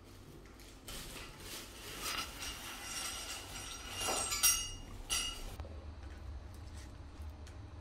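Metal fork clinking and scraping against a ceramic plate, a run of short ringing clinks with the loudest about four and a half seconds in. It goes quieter near the end.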